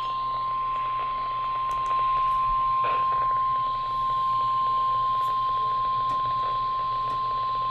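NOAA Weather Radio 1050 Hz warning alarm tone: one steady, unbroken high-pitched tone over the radio, announcing that a severe thunderstorm warning is about to be read.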